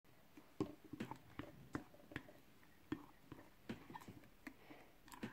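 Pink slime being stirred with a plastic spoon in a glass bowl: faint, irregular sticky squelches and clicks, a few a second, as the borax-glycerin activator thickens it.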